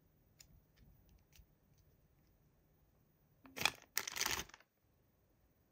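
A few faint clicks of a plastic toy figure being handled, then, about three and a half seconds in, a clear plastic bag holding a toy figure crinkling for about a second.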